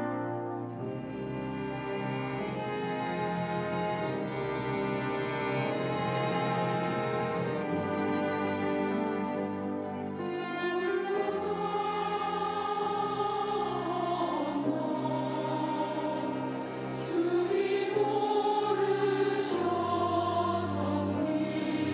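Church choir singing with an orchestra, bowed strings prominent; the voices come in more strongly about halfway through.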